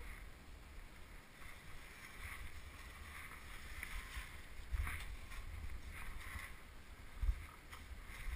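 Low rumble of wind buffeting the microphone, with irregular crunching of snow underfoot and a single thump about seven seconds in.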